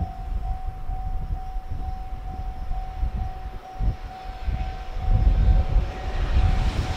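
Japanese railway level-crossing warning bell ringing steadily at about two strokes a second, over a low gusty rumble of wind on the microphone. A freight train's approach grows audible near the end.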